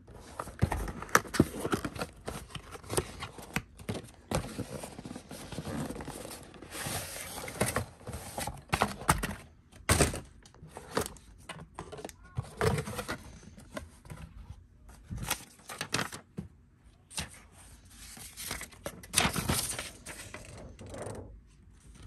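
Cardboard and paper toy packaging being handled and opened: irregular rustles, scrapes and sharp knocks.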